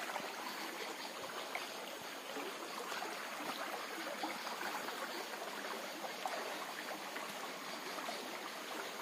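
Muddy floodwater flowing steadily past fallen trees, an even stream-like noise.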